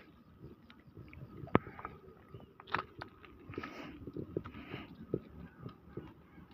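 Faint, irregular footsteps crunching and scuffing on a gritty concrete road deck, with scattered small clicks.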